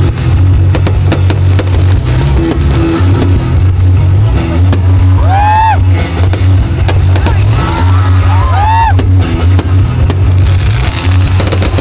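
Loud music with a heavy, steady bass line, mixed with the sharp bangs and crackle of aerial fireworks bursting.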